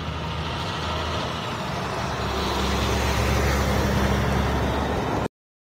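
A B-double semi-trailer truck driving past close by, its diesel engine and tyre noise growing louder as the trailers go by. The sound cuts off suddenly near the end.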